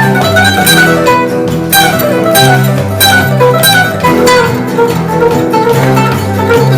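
Background music from a string band: guitar and other plucked strings picking over a bass line that steps from note to note.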